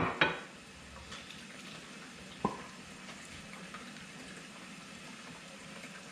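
Sharp clicks and knocks from handling the syringe and tube of a frozen-waterline thawing kit at the refrigerator's water dispenser: two in quick succession at the start and one more about two and a half seconds in, over a faint steady hiss.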